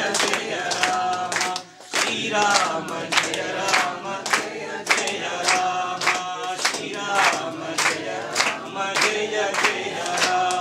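A group of people chanting in unison, with sharp beats keeping time about three times a second. It drops out briefly just before two seconds in, then resumes.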